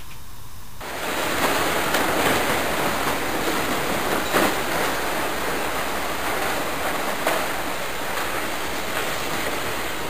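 Steady rushing noise with a couple of faint clicks, about four and seven seconds in.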